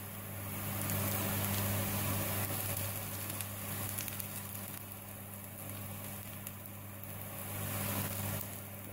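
Chopped onions, green chili and freshly added capsicum sizzling in hot oil in a wok, over a steady low hum.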